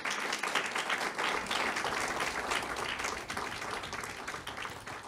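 Audience applause: many hands clapping, loudest at first and fading over the last couple of seconds.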